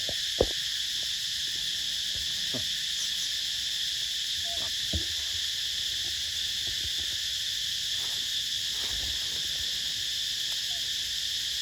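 Steady, unbroken high-pitched insect chorus, with a few sharp clicks just after the start and another about five seconds in.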